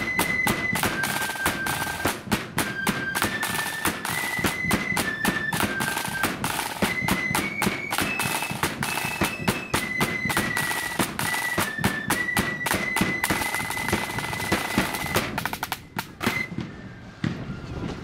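Marching flute band playing a tune: flutes in unison carry the melody over rapid snare drumming and a bass drum. The melody stops about fifteen seconds in, and the drumming dies away soon after.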